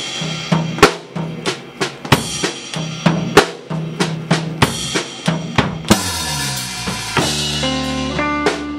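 Live drum kit playing alone: kick, snare and cymbal strokes in a steady groove, a few hits a second. About six seconds in, a crash comes with a sliding note, and the rest of the band comes in with held chords.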